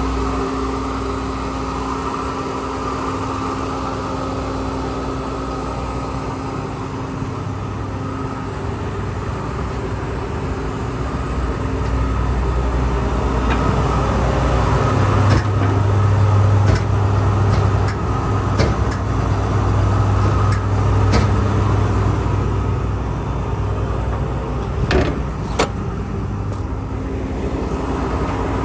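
Diesel engine of a Dynapac SD2500CS asphalt paver running steadily. It grows louder and heavier for several seconds in the middle, with scattered sharp clicks and knocks, two of them louder near the end.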